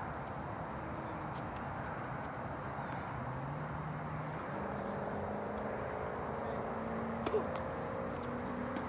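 Steady background noise, joined about three and a half seconds in by a low mechanical drone that rises slowly in pitch. A single sharp knock comes near the end.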